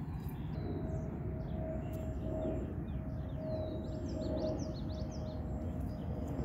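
Small birds chirping, a quick run of short, repeated high calls, over a steady low outdoor rumble, with a faint steady tone underneath.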